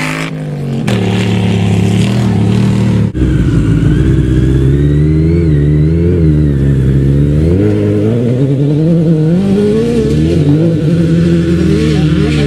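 Off-road rally buggy's engine revving as the buggy pulls away, its pitch rising and falling again and again with the throttle, with a brief break about three seconds in.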